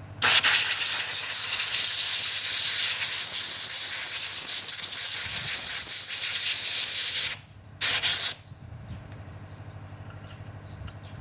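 A pressurised jet of gas hissing: one long blast of about seven seconds that cuts off suddenly, then a short second blast about half a second later, over a steady low hum.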